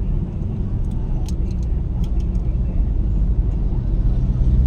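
Steady low rumble of engine and road noise inside a moving car's cabin, growing slightly louder toward the end, with a few faint light ticks.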